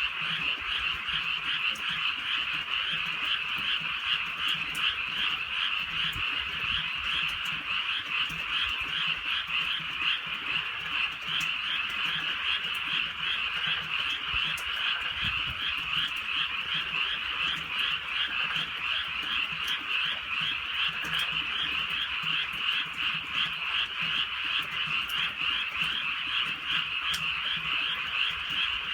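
A dense chorus of many frogs croaking together, their rapid calls overlapping into a steady, unbroken wall of sound.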